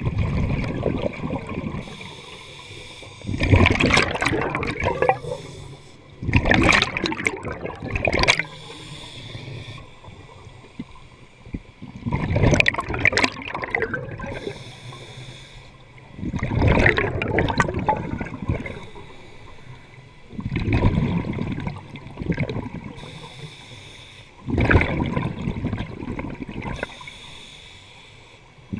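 Scuba regulator breathing underwater: loud gurgling rushes of exhaled bubbles about every four seconds, with quieter stretches between breaths.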